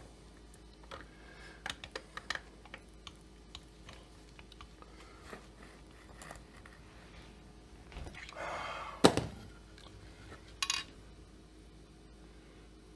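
Small metal clicks and clinks of tools and chainsaw crankcase parts being handled on a workbench, with a short rattle ending in a sharp knock about nine seconds in.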